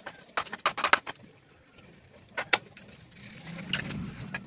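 A large kitchen knife chopping through a fish head onto a wooden board: a quick run of sharp knocks in the first second, a single knock about halfway and two more near the end. A low rumble swells up under the last knocks.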